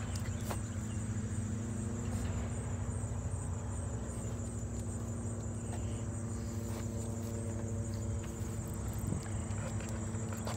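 Summer insects trilling steadily in a high, even band, over a low steady hum.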